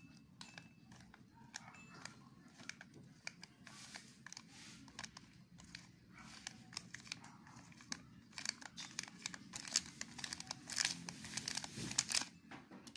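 Faint crinkling and crackling as grated cheese is added by hand to a bowl of flour, with many small irregular clicks that grow busier over the last few seconds.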